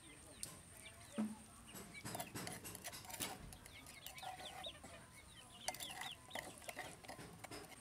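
Chickens clucking, with runs of short high peeps a few seconds in and again near the end. Light clicks and taps sound among them.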